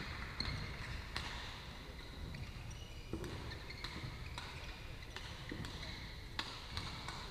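Badminton rackets striking shuttlecocks across several courts in a large hall: scattered sharp hits with a little echo, short squeaks of shoes on the court floor, and a low steady rumble underneath.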